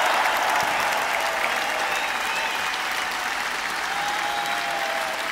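Large arena audience applauding, the applause easing off slightly.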